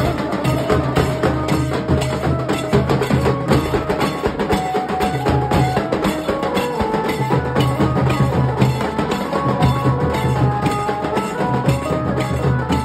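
Nashik dhol band playing: several large barrel dhols beat a fast, steady rhythm with sharp stick strokes, while a melody line steps up and down over the drums.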